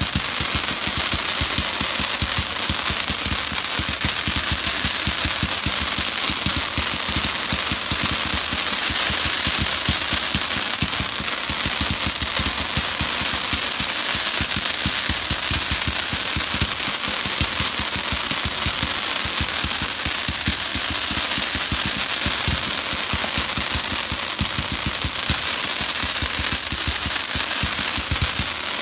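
A long string of firecrackers going off: a dense, rapid, unbroken volley of sharp bangs that cuts off abruptly near the end.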